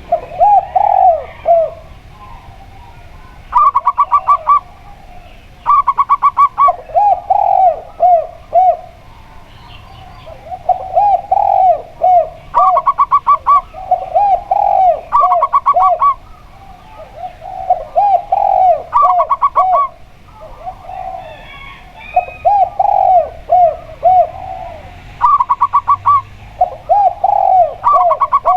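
Zebra dove (perkutut) and spotted dove (tekukur) cooing in turn. The zebra dove gives short, higher, rapidly pulsed trilling phrases. These alternate with the spotted dove's lower, rounded coo phrases. Each phrase lasts about a second and they follow one another every couple of seconds.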